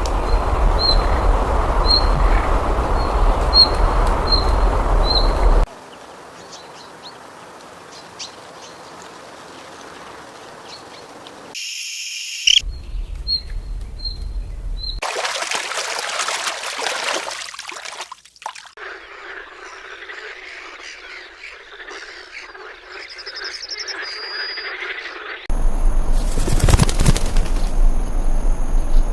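Nature recordings joined with abrupt cuts: short high chirps repeating about once a second over a loud steady hiss, then quieter stretches with scattered faint calls and a brief high trill, and the loud hiss again near the end. The repeating chirps are frog or bird calls.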